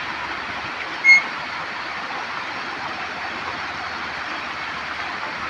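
Kopili River floodwater rushing in a steady, churning flow over a submerged road. A single short, high-pitched tone sounds once about a second in, louder than the water.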